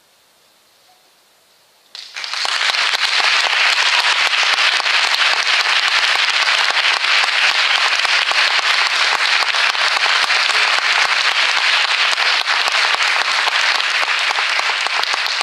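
A couple of seconds of near silence, then applause breaks out suddenly about two seconds in: many hands clapping, loud and steady.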